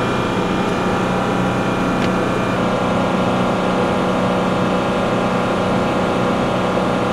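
MH-60S Seahawk helicopter turbine running steadily, a loud whine made of many steady tones, cutting off suddenly near the end.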